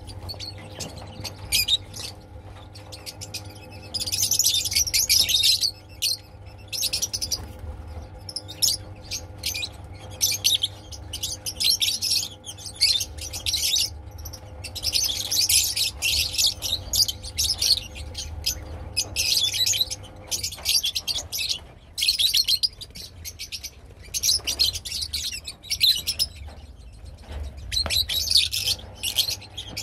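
A flock of rosy-faced lovebirds chattering: dense, high-pitched chirps in bursts of a second or two with short gaps between. A faint steady hum runs underneath and drops away about two-thirds of the way through.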